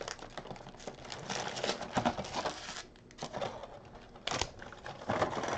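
Foil-wrapped Bowman Platinum baseball card packs crinkling and tapping as they are lifted out of a cardboard hobby box and stacked, with a few sharper taps as packs are set down.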